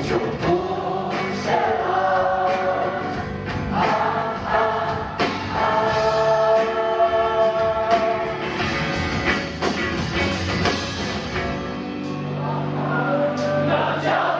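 Live rock band playing, with drums and guitars under many voices singing the melody together like a choir.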